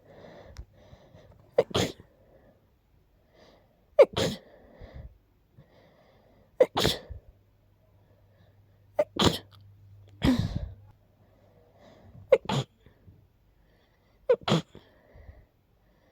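A person sneezing over and over: about seven sharp, stuffy sneezes, two to three seconds apart, from someone sick with a blocked nose.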